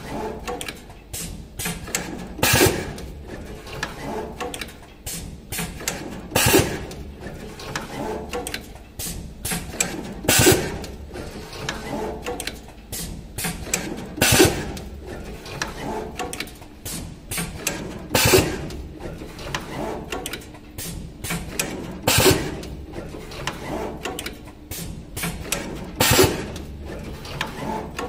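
Automatic wire cutting, stripping, twisting and tinning machine running through its cycle. Its pneumatic grippers and slides clack and click, with a loud burst about every four seconds as each wire is processed.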